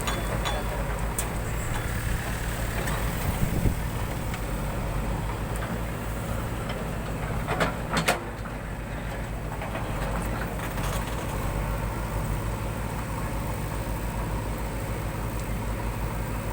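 Backhoe loader's diesel engine running steadily with a fast even low throb, with a few sharp metallic clanks about three and a half seconds in and again about eight seconds in.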